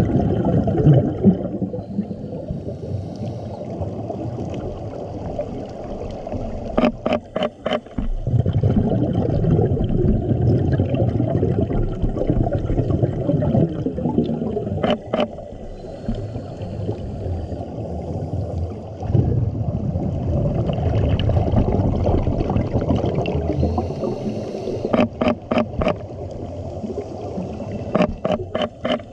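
Underwater sound of a scuba diver's regulator: exhaled bubbles making a low rumbling gurgle that swells and eases with the breathing, with a few short bursts of rapid clicks.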